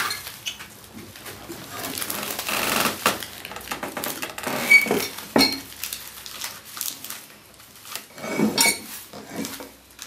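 Dry broom straw rustling and crackling as it is gathered and bound by hand into a hand broom, with irregular small clicks and clinks.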